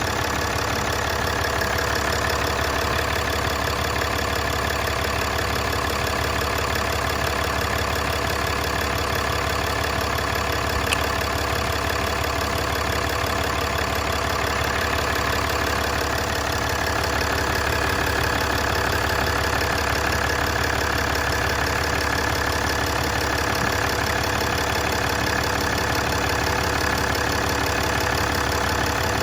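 A 2014 Ram 3500's 6.7-litre Cummins turbo diesel idling steadily, running on freshly replaced fuel filters. There is one faint click about eleven seconds in.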